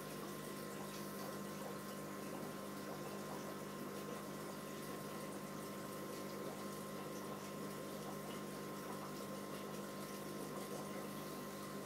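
Aquarium filtration running steadily: a constant hum with a few fixed tones under a soft hiss of moving water, unchanging throughout.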